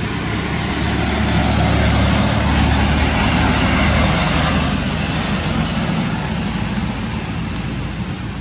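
Engine and road rumble of a passing vehicle, swelling over the first few seconds and then fading.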